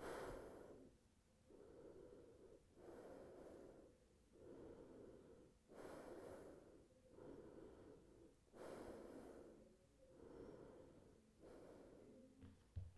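Slow, deep breathing in and out, faint, with a fuller breath about every three seconds.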